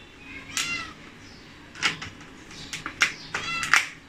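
Plastic display bezel of a Dell Inspiron 15 being pried off by hand: a string of sharp snaps as its retaining clips let go, several followed by a brief squeak or creak of the flexing plastic.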